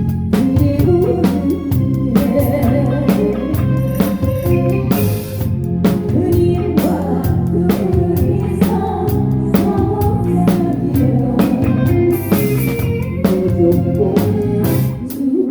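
A live seven-piece band playing a song with a singer, the drum kit keeping a steady beat under bass and guitar.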